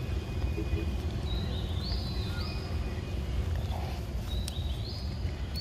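Outdoor forest ambience: a steady low rumble under a bird's high call, a short tone that steps up in pitch, repeated three times about three seconds apart.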